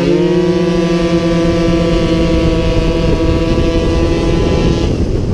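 50cc racing scooter engine held at high revs along a straight, its note steady, with wind rushing over the onboard microphone. The engine note fades about five seconds in as the throttle eases.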